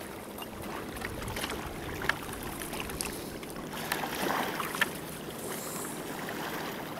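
A wire-mesh crayfish trap being handled and emptied of crayfish into a plastic bucket: a few scattered light clicks and rattles over a steady background of wind and water.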